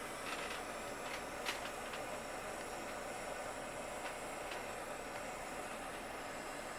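Small soldering torch flame hissing steadily as it heats a silver joint until the solder flows, with a few faint ticks, the sharpest about a second and a half in.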